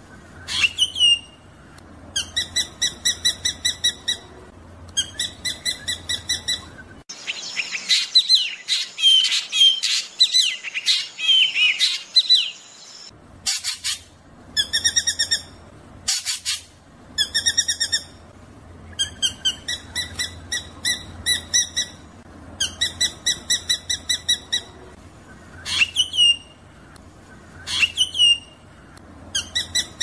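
Drongo (srigunting) singing a rolling song: repeated phrases of rapid, evenly repeated ringing notes, each lasting about a second and a half, broken by single sharp down-slurred calls. From about 7 to 13 seconds a denser run of tangled chirps and whistles takes over.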